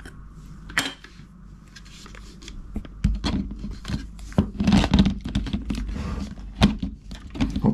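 A 24-70 mm zoom lens being handled and fitted onto a camera body: one click just under a second in, then scattered clicks, knocks and rustling of handling from about three seconds on.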